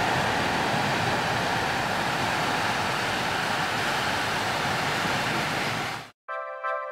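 Steady rush of sea surf washing over a rocky shore. About six seconds in it cuts off suddenly and background music begins.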